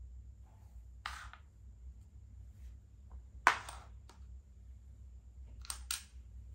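Makruk (Thai chess) pieces being picked up and set down on the board as the red horse takes a white piece: a few short clacks, the loudest about three and a half seconds in, and a quick double clack near the end as the captured piece is put aside.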